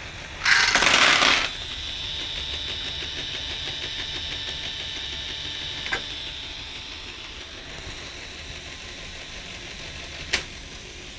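A loud clatter of small plastic balls spilling from the LEGO train loader's tipped dumper bin for about a second, then a LEGO motor whining steadily for several seconds. Two sharp clicks follow, one near the middle and one near the end.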